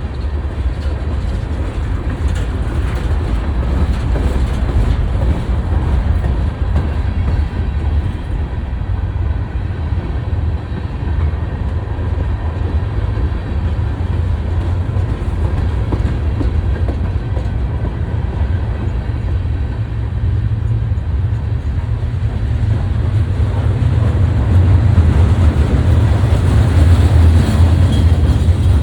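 BNSF freight train rolling past: a steady low rumble of wheels on rail that grows louder near the end.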